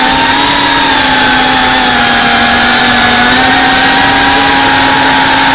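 GEPRC Cinelog 35 FPV drone's ducted brushless motors and propellers whining in flight, close on the onboard camera's mic. A loud, steady, buzzy whine over a rushing hiss that holds a nearly constant pitch, with only small shifts as the throttle changes.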